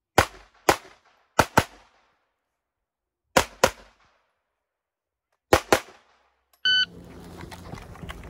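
Rifle fired rapidly eight times, mostly in quick pairs with pauses of one to two seconds between them. About three-quarters of the way through a brief high tone sounds, then running footsteps and gear rattling take over.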